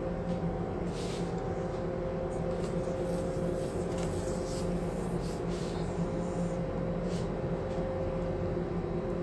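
Steady drone of a ship's running machinery with several held tones, and a few faint scratchy strokes of a paintbrush on steel.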